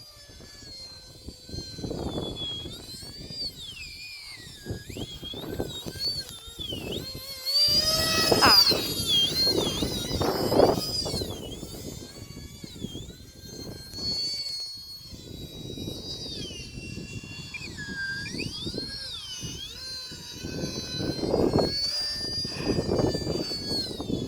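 Whine of the twin electric ducted fans of an E-flite UMX A-10 radio-controlled model jet. Its pitch rises and falls with throttle and swings up sharply, loudest about 8 seconds in. Gusts of wind buffet the microphone.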